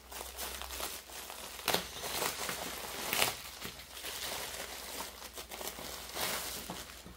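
Plastic packaging crinkling and rustling as phones are handled and unwrapped, with a few sharper crackles, the loudest about three seconds in.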